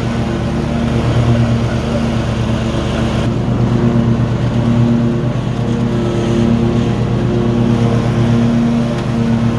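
Toro mower's engine running steadily at a constant pitch.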